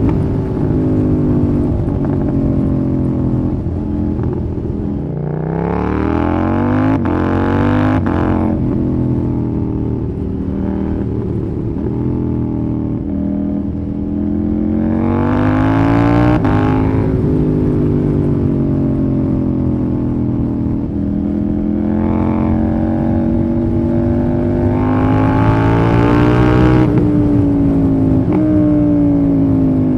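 KTM Duke 790/890 parallel-twin engine through an Austin Racing RS22 de-cat exhaust, ridden on the road. It pulls hard three times, about six, fifteen and twenty-five seconds in, the engine note rising steeply each time and then dropping back, with steadier running between.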